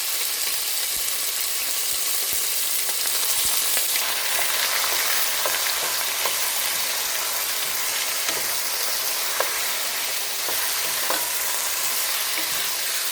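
Chicken pieces searing in hot vegetable oil in a pot: a steady loud sizzle with scattered pops and occasional clicks of a utensil stirring.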